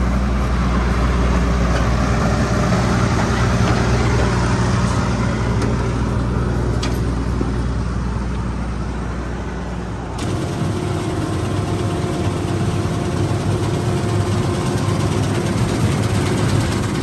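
Laverda 3350 AL combine harvester running, a steady engine hum with its machinery turning. About ten seconds in, the sound changes abruptly to a rougher, noisier run as the combine works through the standing crop.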